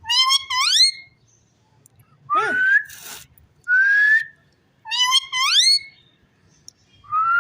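Indian ringneck parakeet whistling a series of about five short rising calls, each under a second, with brief silences between.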